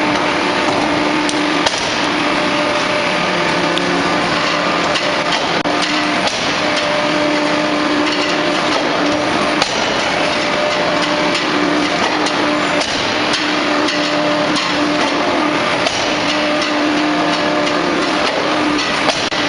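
Hydraulic open die forging press working hot metal: a loud, continuous industrial din with a low hum that rises and drops away every second or two as the press cycles, and occasional sharp clanks.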